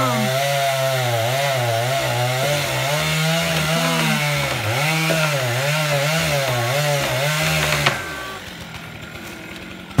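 Gas chainsaw cutting through the trunk of a dead tree, its engine pitch rising and falling as the chain bites and frees in the cut. About eight seconds in the saw drops off sharply, and a heavy thud comes right at the end as the trunk hits the ground.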